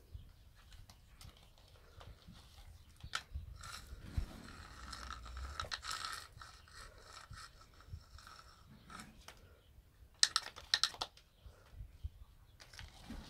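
A plastic slingshot scraping and tapping on a concrete floor as it is dragged and twirled, making irregular scratches and clicks, with a quick run of sharp, loud scrapes about ten seconds in.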